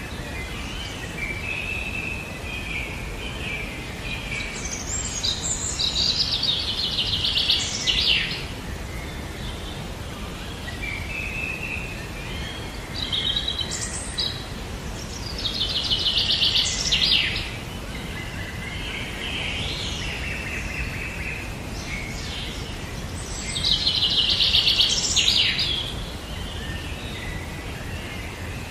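A bird singing three times, roughly eight seconds apart: each song is a warbling run that ends in a loud, fast trill. A steady hiss of background noise runs underneath.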